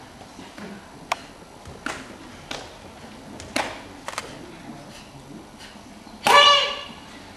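A karateka performing a kata: a series of sharp snaps as strikes and steps are executed, then a loud shouted kiai about six seconds in.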